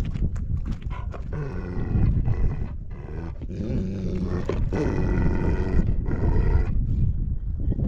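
An animal's loud, drawn-out call in three long stretches with short breaks, over a steady low wind rumble on the microphone.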